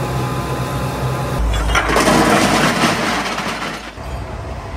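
Foundry machinery running: a steady motor hum, cut about a second and a half in to a louder, rough roar with a deep rumble. Near the end that gives way to quieter yard noise.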